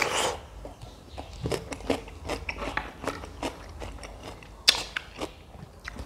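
Close-miked chewing of a mouthful of instant noodles and sardine, with many short wet mouth clicks and smacks. There are louder breathy bursts at the start and again just before five seconds in.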